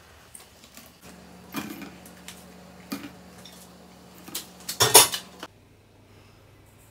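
Kitchen utensils clinking against cookware: a few separate clinks, then a louder clatter about five seconds in that stops suddenly.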